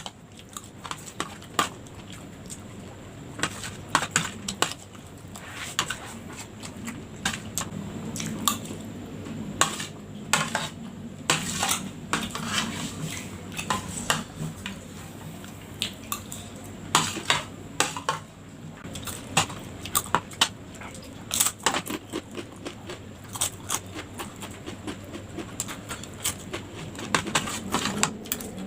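Metal spoon clinking and scraping against a plate while eating, in many irregular sharp clicks.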